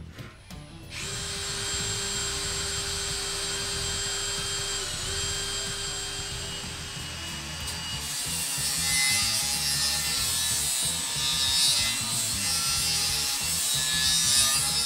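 Handheld cordless grinder running with a steady whine from about a second in. From about eight seconds it cuts into the steel truck rim's stud hole, adding a harsh high grinding hiss; it is opening up the hole to the new stud pattern.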